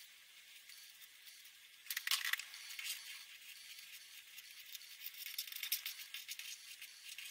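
Marker pens scratching across paper in quick, irregular short strokes, starting about two seconds in after a faint hiss.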